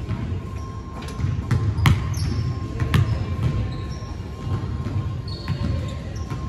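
Basketballs bouncing on a hardwood gym floor, several sharp thumps with the loudest about two and three seconds in, and short high sneaker squeaks from players on the court, all echoing in a large gym hall.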